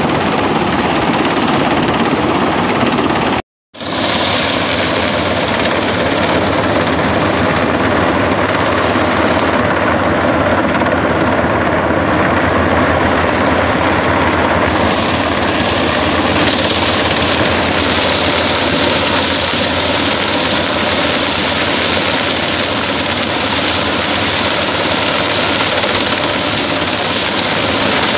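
US Coast Guard MH-60 Jayhawk helicopter hovering close by, its rotor and turbine noise loud and steady. The sound cuts out completely for a moment about three and a half seconds in.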